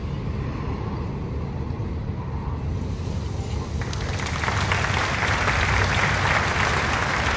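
A vehicle runs with a low, steady hum. About four seconds in, a louder rustling, scraping noise begins as a load of branches and brush slides out of a raised dump-trailer bed.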